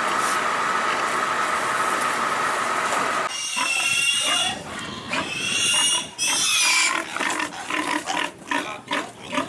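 Pigs squealing loudly and shrilly in a steel truck bed, several long cries in a row, then short grunts and sharp knocks over the last couple of seconds. For the first three seconds before the squealing there is a steady machine drone with a held high tone.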